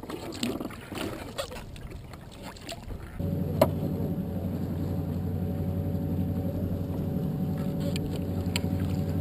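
Paddle splashes and water lapping for the first three seconds, then a steady low drone of a small boat's outboard motor running, with one sharp knock just after the drone begins.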